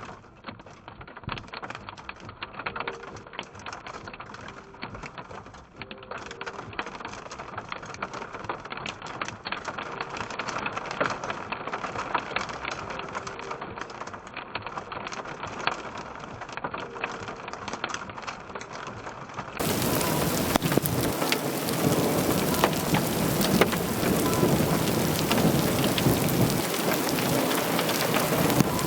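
Heavy rain pelting a surface as a dense hiss of small ticks. About two-thirds of the way in it cuts abruptly to a louder, heavier downpour.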